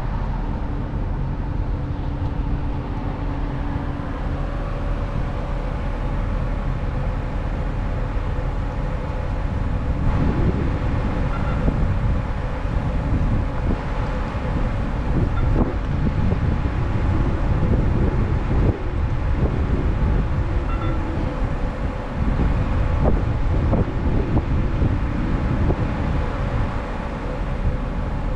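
Road traffic at a busy intersection: a steady low rumble of idling and passing cars, busier from about a third of the way in.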